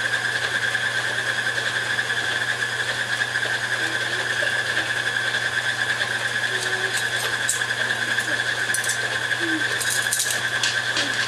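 Electric stand mixer motor running at a steady speed, a continuous high whine over a low hum.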